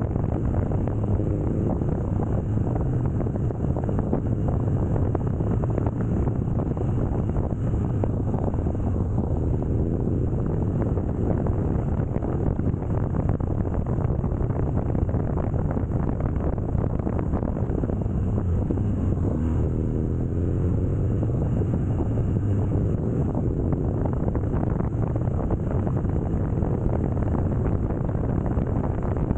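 BMW R nineT Scrambler's boxer-twin engine running steadily while riding, with wind rushing over the microphone.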